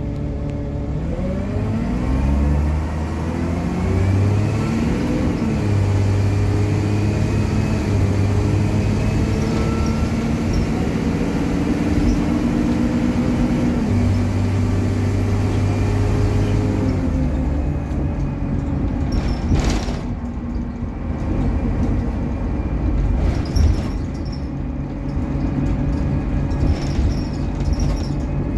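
Optare Solo M880 bus's diesel engine heard from inside the passenger saloon as the bus pulls away. The engine note rises over the first few seconds, dips briefly about five seconds in, then holds steady. About seventeen seconds in the engine tone falls away, leaving road and body noise with a single sharp knock.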